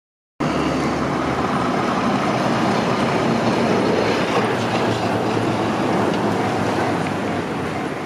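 Train running on the track just after clearing a level crossing: a steady noise of wheels on rails that eases slightly near the end.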